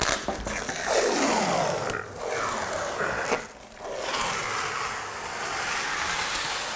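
Protective plastic film being peeled off a door's glass panel, a ripping, crackling scrape in three long pulls with short breaks about two and three and a half seconds in.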